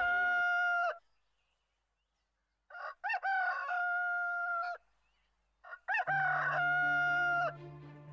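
Rooster crowing three times, each crow ending in a long held note, with dead silence between the crows. Music with a low steady bass comes back under the last crow and carries on after it.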